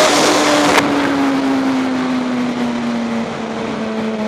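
Suzuki GSX-R sportbike's inline-four engine heard from the rider's helmet camera, its note sliding slowly down in pitch as the bike slows, then holding steady. Heavy wind rush drops away sharply about a second in.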